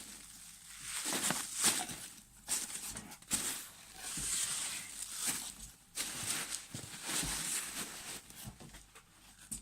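Packing material rustling and crinkling as a parcel is unpacked by hand, in irregular bursts with a few sharp clicks.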